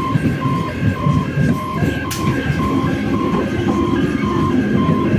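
EMU electric local train running past, wheels on the rails, over the continuous beeping of a level-crossing warning alarm that alternates between a lower and a higher tone about twice a second.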